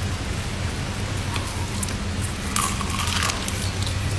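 Crispy breading of Jollibee fried chicken crunching as it is bitten into, a crackly crunch lasting under a second about two and a half seconds in, over a steady low hum.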